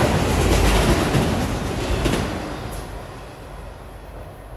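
Freight train of autorack cars passing close at speed, steel wheels on the rails making a loud, even rumble that fades away about two seconds in as the end of the train goes by and recedes.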